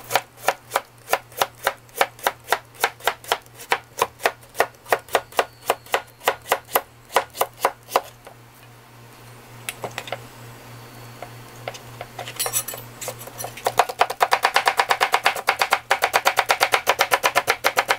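Kitchen knife chopping cucumber on a plastic cutting board: a steady run of slicing strokes about four a second. After a few seconds' pause, faster chopping at about seven strokes a second as the slices are cut into thin strips.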